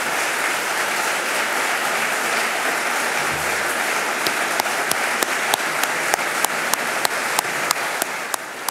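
Audience applauding. About halfway through, the clapping thins out into separate, scattered claps that fade near the end.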